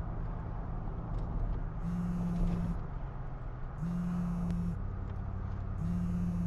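Smartphone vibrating on a car seat for an incoming call: three buzzes of about a second each, two seconds apart, over the steady road rumble inside a moving car's cabin.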